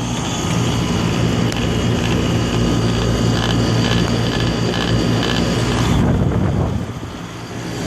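Air-conditioner compressor running again with a steady hum and a rushing noise over it, having restarted after cooling down from a thermal-overload shutdown. The rushing dips briefly near the end.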